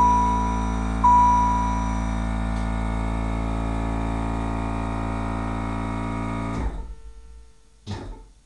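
Electric brake vacuum pump, a small compressor motor pulling vacuum for the power-brake booster at start-up, running with a steady hum while a chime dings at the start and again about a second in. The pump cuts off abruptly near the end, then gives one short spurt a second later, the pulsing the owner questions as perhaps not normal.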